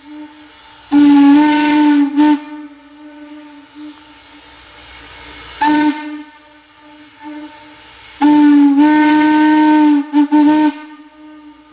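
Steam whistle of Norfolk and Western 4-8-0 No. 475, played: it hangs on softly, swelling into a loud blast about a second in, a short toot near the middle, and a long blast near the end broken off into two quick toots, with steam hissing through it.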